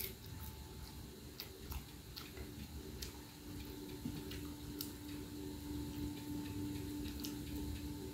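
A man eating with his hand: soft chewing and scattered small, irregular clicks and smacks from mouth and fingers in the food, over a steady low hum that comes in about three seconds in.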